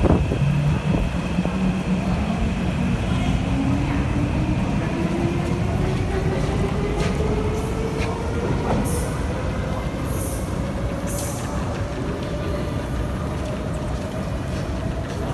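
Kawasaki C151 metro train with PMSM traction motors pulling away from the platform. Its motor whine climbs steadily in pitch as it gathers speed, over wheel-on-rail noise.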